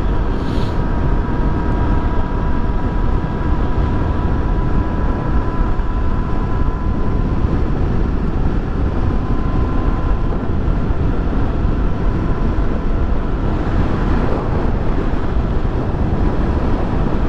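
Honda XRE300's single-cylinder four-stroke engine running steadily at highway cruising speed, under heavy wind and road rush. A faint steady whine sits over the rumble, and the rushing hiss swells briefly about fourteen seconds in.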